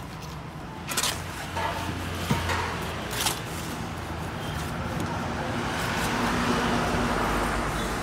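A long-handled shovel scraping and chopping through wet cement mortar on the ground while it is mixed, with a few sharp knocks of the blade in the first half and a steadier scrape later.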